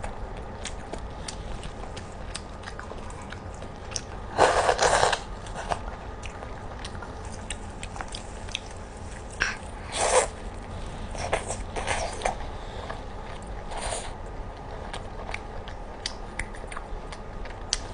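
Close-up eating sounds of chicken being bitten and chewed: many small wet mouth clicks and smacks, with a handful of louder bites spread through.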